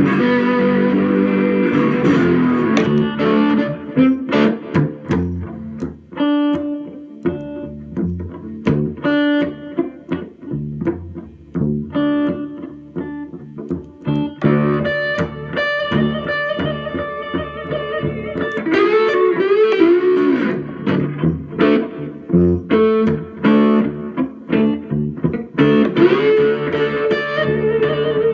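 Electric guitar, an ES-335 type, played with a bottle slide: picked notes and chords with gliding slide pitches, clearest about two-thirds of the way through.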